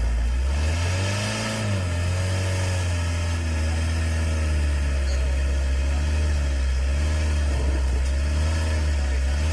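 Car engine idling with a steady low drone, revved briefly about a second in and then settling back to idle.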